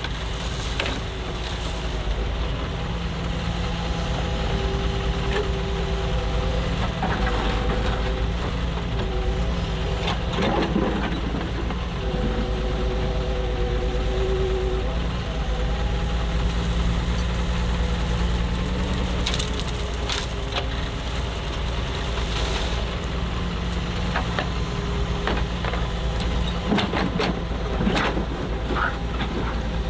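Doosan DX140W wheeled excavator's diesel engine running under working load, its note shifting up and down, with sharp knocks and clatter now and then.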